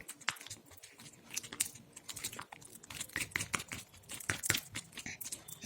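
Glue slime thickening as it activates with Boroplus, being stirred in a bowl: irregular sticky clicks and squelches, several a second.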